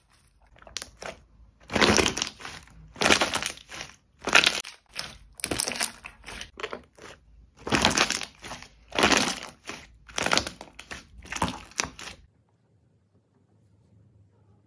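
Slime being squeezed and squished by hand, a crackling, crunching squelch with each press, about ten presses roughly a second apart that stop about twelve seconds in.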